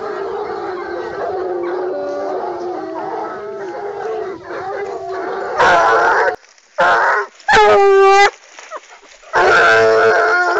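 Pack of Gascon Saintongeois hounds baying together in a continuous overlapping chorus, the cry of hounds on wild boar. About five and a half seconds in, it cuts to a single hound giving four loud, separate drawn-out bays, the longest a held howl.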